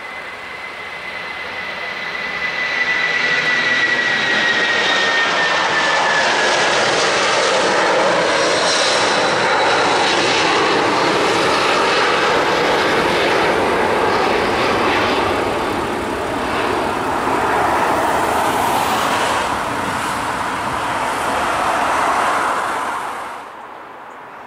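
Four Rolls-Royce RB211 turbofans of a Boeing 747-436 at take-off power as it lifts off and climbs out. A whine slides down in pitch over the first few seconds under a broad jet roar. The roar swells about two seconds in, stays loud, and drops away sharply near the end.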